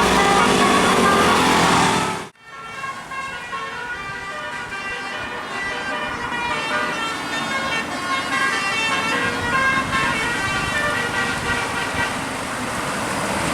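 Indonesian tour bus's 'telolet basuri' multi-tone horn playing a tune in stepped notes over a low engine hum. The sound breaks off about two seconds in, and a quieter horn tune of stepped notes follows.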